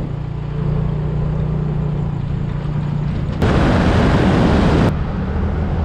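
Motorbike being ridden, its engine running steadily under rumbling wind noise. About three and a half seconds in, a louder rush of wind noise comes in and cuts off a second and a half later.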